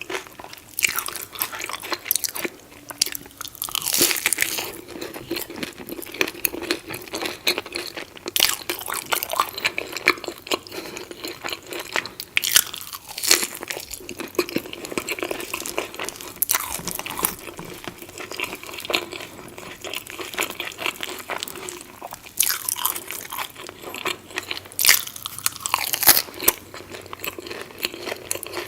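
Crunchy food being bitten and chewed close to the microphone: a steady stream of loud crackling crunches, with heavier bites now and then.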